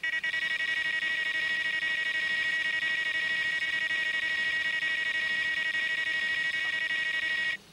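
Daiwa electronic carp bite alarm sounding a continuous high-pitched electronic tone, which cuts off suddenly near the end. A sustained tone like this is the alarm's signal of line running through it, a take.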